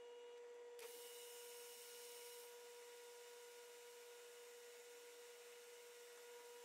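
Near silence: a faint steady electrical hum, with a soft click about a second in.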